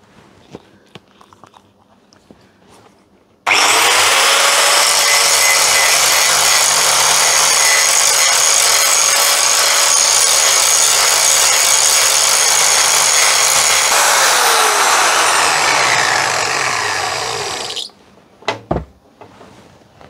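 Corded angle grinder with a grinding disc starting abruptly a few seconds in and grinding the cast-iron jaw of a Record No. 25 bench vise: a harsh, steady grinding noise with a high whine. About ten seconds later it is switched off and winds down with falling pitch, stopping a couple of seconds before the end, followed by a few light knocks.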